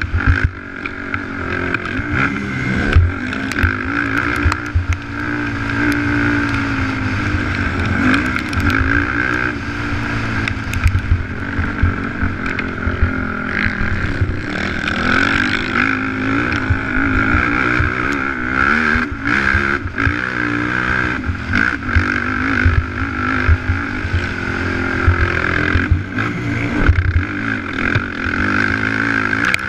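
Race quad's engine revving up and falling back again and again at race pace, with frequent thumps from the machine hitting bumps.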